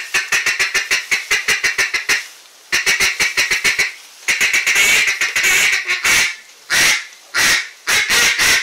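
Hand-held duck calls blown in a calling contest. First come fast runs of short quacks, several a second, with brief pauses between runs. From about six seconds in the notes turn into longer, separate quacks about half a second apart.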